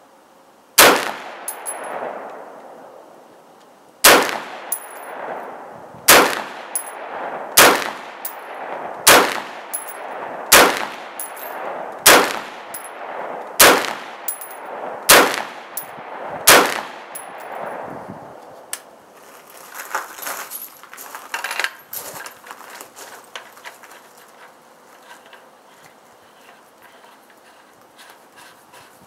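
Ten shots from a suppressed IWI Tavor SAR 5.56 rifle in slow, aimed fire, about a second and a half apart, each followed by a fading echo. After the last shot come light metallic clicks and rattles as the rifle is handled.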